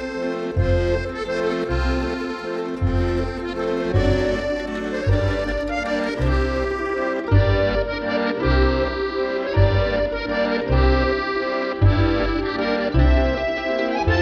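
Instrumental intro music: held, reedy-sounding chords over a steady bass pulse about once a second.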